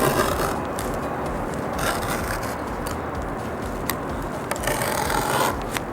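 A blade cutting through boat deck carpet along a template: scraping, rubbing strokes with a few sharp clicks over a steady background noise.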